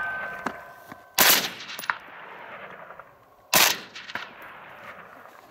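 Two rifle shots from a KelTec RDB 5.56 mm bullpup, about two and a half seconds apart, each trailing off in a short echo. At the start a hit steel target is still ringing, fading out within about a second.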